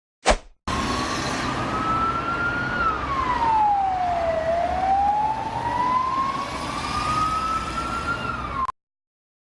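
An emergency-vehicle siren sound effect: one wailing tone that rises, sweeps down, then climbs slowly back up over a steady traffic-like rumble, and cuts off suddenly. A brief burst comes just before it.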